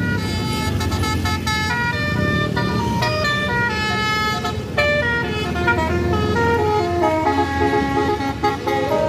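Tour bus's basuri telolet horn playing a tune of short notes that change pitch every fraction of a second, over the steady rumble of the bus's engine.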